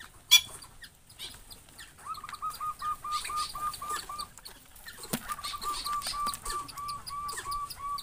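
A bird calling a rapid series of short, even notes at one pitch, about four a second, in two runs separated by a brief pause. A sharp click comes just after the start.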